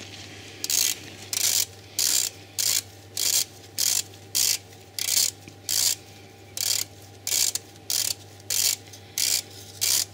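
Hand ratchet with a 12-point spline bit undoing a torque converter bolt: short runs of ratchet clicks on each back-swing, about one every 0.6 s, over a steady low hum.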